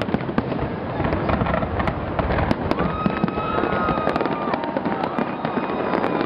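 Fireworks display: a dense, unbroken run of crackling and popping bursts, with a steady high tone held for about a second, twice, in the second half.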